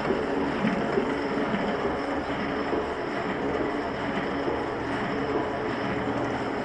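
Small sheet-fed offset printing press running steadily, a continuous mechanical noise from its rollers, grippers and paper feed.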